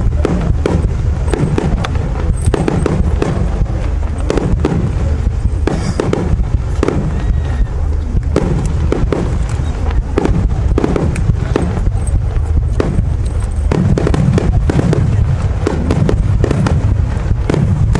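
Japanese aerial fireworks shells bursting in quick succession: a dense run of booms and crackles, many a second, over a steady low rumble.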